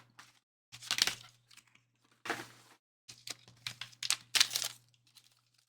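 Packaging of a trading-card box being torn open and crinkled, in about six short, crisp bursts.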